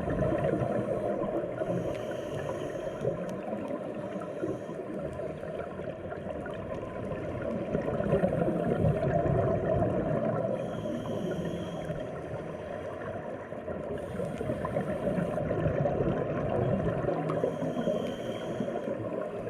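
Steady rushing water noise that swells and eases slowly.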